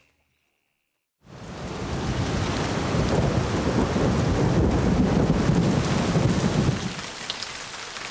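Thunderstorm: a heavy rumble of thunder with pouring rain breaks in suddenly after about a second of silence. The thunder dies away about seven seconds in, leaving steady rain.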